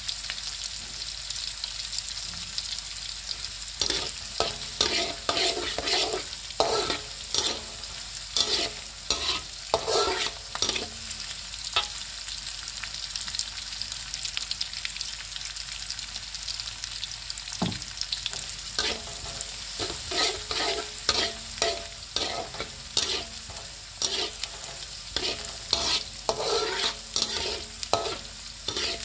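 Minced garlic and shallots sizzling in hot oil in a wok, with a metal spatula scraping and knocking against the wok in spells of stirring. The stirring stops for several seconds in the middle while the frying hiss goes on.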